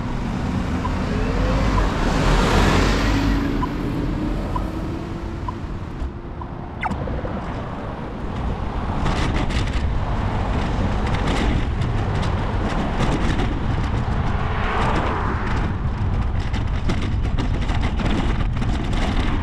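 Road traffic heard while cycling beside a road: cars passing, loudest about two to three seconds in and again around fifteen seconds, over a steady low rumble, with scattered light clicks in the second half.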